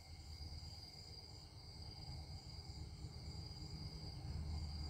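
Quiet background: a faint, steady high-pitched whine over a low rumble that grows a little louder toward the end.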